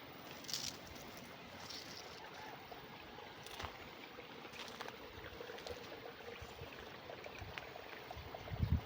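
Steady flow of water in a small irrigation channel, with scattered footstep crunches on the leaf-strewn path and a low thump near the end.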